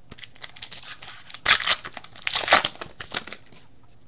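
A foil trading-card pack wrapper being torn open and crinkled, with the two loudest rips about one and a half and two and a half seconds in.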